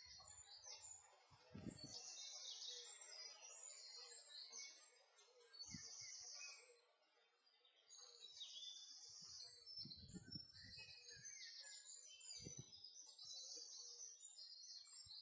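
Songbirds singing faintly from the trees, a steady run of short high chirps and trills. A few low dull thumps sound underneath.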